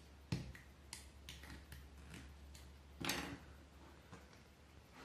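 Scattered light clicks and taps as a crochet hook presses thread down over the small nails of a string-art board, with a louder scuffing knock about three seconds in.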